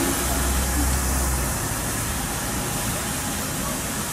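South African Railways Class NG G16 Beyer-Garratt steam locomotive No. 138 moving slowly with steam escaping from its open cylinder drain cocks: a steady hiss of steam over a low rumble that eases about a second and a half in.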